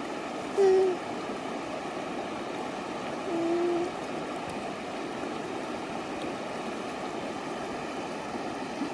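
Creek water running steadily. Two short pitched sounds cut through it, one just under a second in and a slightly longer one about three and a half seconds in.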